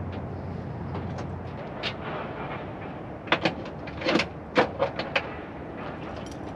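Heavy steel tie-down chain clanking in a string of sharp metal clinks, mostly from about three to five seconds in, as it is pulled out of a truck's chain box and hoisted up over a shoulder. A steady low engine hum runs underneath.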